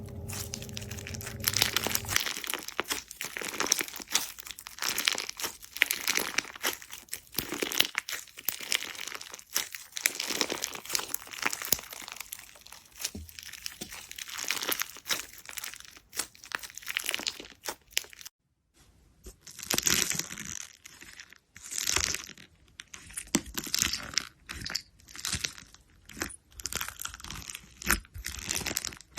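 Slime being squeezed and worked by hand, making a dense run of small clicks and pops. After a short break about two-thirds of the way through, it gives separate crackling presses roughly once a second.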